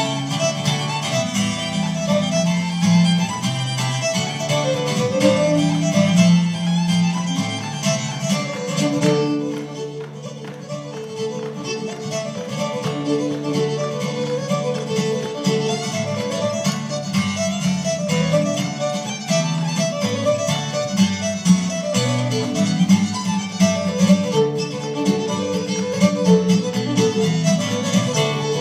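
A fiddle playing a fast Irish reel over strummed acoustic guitar accompaniment, with a brief softer moment about nine seconds in.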